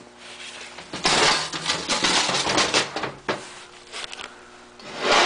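Loud rubbing and scraping with metallic clatter from hands handling metal engine parts, starting about a second in, then a few sharp knocks and another burst of scraping near the end.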